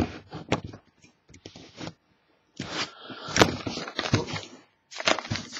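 A trading card box and pack being handled and opened by hand: a few knocks and clicks, then about two and a half seconds in a stretch of crinkling and tearing of the wrapping, with more crinkling near the end.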